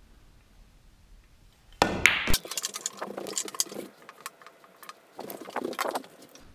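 A pool break shot about two seconds in: the cue strikes the cue ball with a sharp crack and it smashes into the racked balls. After that come quick runs of pool balls clicking together, in two bursts.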